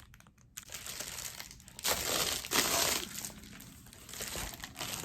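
Packaging being crinkled and rustled while a package is unwrapped, with two louder bursts of crinkling about two seconds in.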